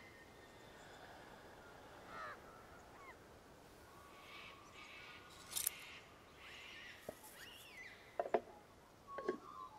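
Quiet pine-forest ambience with scattered short bird calls, and a few sharp clicks and knocks of handling as a dog's leather collar is unfastened and a small wooden box is handled, the loudest coming about halfway and twice near the end.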